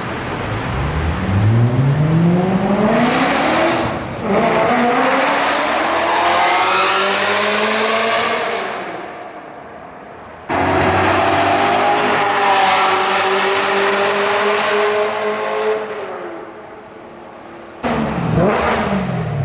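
BMW E92 M3's 4.0-litre V8 through an aftermarket titanium exhaust, accelerating hard with the revs climbing, changing up about four seconds in and pulling again, then easing off as the revs fall. After an abrupt cut it runs high again and winds down, and near the end its pitch dips and swings sharply back up.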